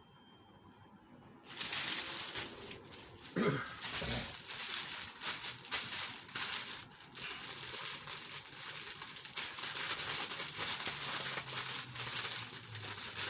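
Plastic packaging crinkling and rustling continuously as it is handled and opened to get a t-shirt out, starting about a second and a half in.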